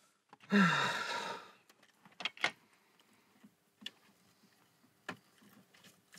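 A person lets out one breathy sigh, its pitch falling at the start, lasting about a second; afterwards a few faint, sharp clicks and small knocks.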